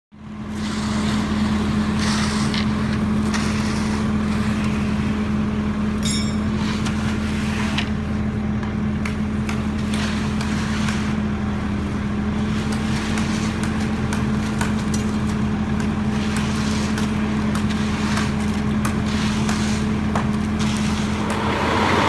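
Diesel engine of a concrete truck running at a steady speed with a constant hum, with scattered clicks and knocks over it.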